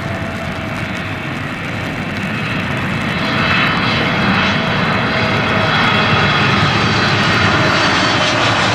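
Boeing 777-300's twin jet engines on final approach, a steady jet noise with thin whining tones on top, growing louder about three seconds in as the airliner comes closer.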